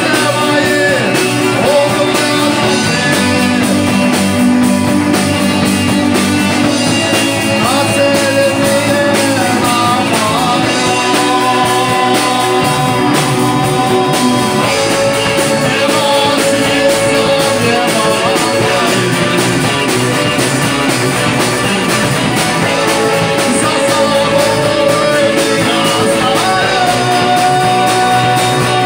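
Live rock band playing a song: electric guitar, keyboards and drum kit, with a lead vocal of long held notes.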